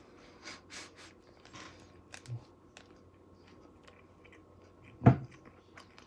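Close-up chewing of a Nature Valley Sweet and Salty Nut granola bar: faint wet mouth clicks and soft chews in the first couple of seconds. About five seconds in comes one sharp loud knock.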